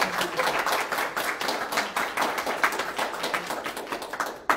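Audience applauding, many hands clapping at once, thinning to a few separate claps near the end.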